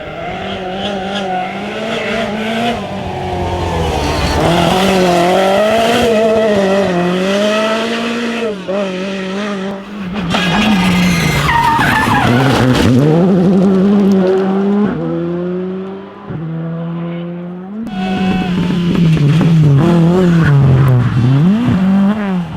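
Rally car engines at full throttle, revving up and down through gear changes and lifts, with tyres skidding. The engine pitch drops sharply about halfway through, and the sound breaks off abruptly a few times.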